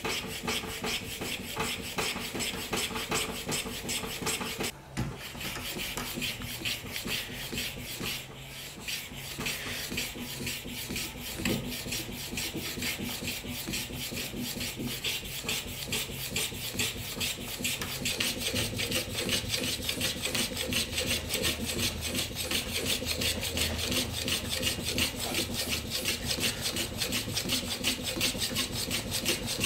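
Small hand plane cutting a chamfer along the edge of a wooden frame piece held in a vise, in quick, repeated short strokes, with a short pause about five seconds in.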